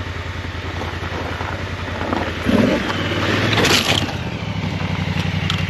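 Honda Africa Twin motorcycle's parallel-twin engine running steadily at low revs, with a louder, noisy scuffle lasting about a second and a half near the middle.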